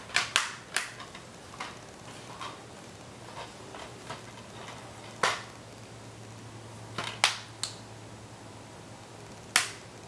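Scattered sharp clicks and knocks, a quick cluster of three at the start and then single ones a few seconds apart, over a faint low hum.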